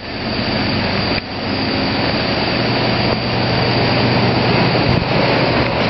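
Loud steady mechanical rushing noise with a low hum underneath, building up over the first second.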